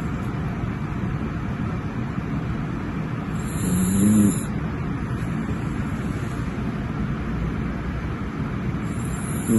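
A sleeping dog snoring: two drawn-out snores about five and a half seconds apart, one in the middle and one at the end, each with a rising nasal tone and a hiss. Under them runs a steady rushing background noise.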